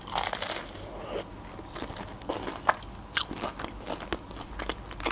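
A bite into a crispy pastry with a curd filling: a loud crunch in the first half second, then close-up chewing with small crunches and mouth clicks.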